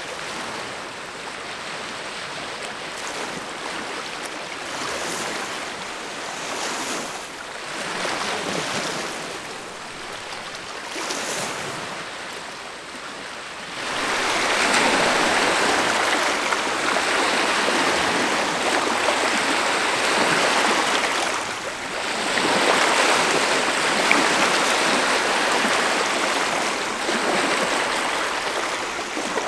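Small lake waves lapping and breaking on a pebbly shore, a steady wash of water. It grows much louder about halfway through, after a softer stretch of wind and distant water with a few gusts.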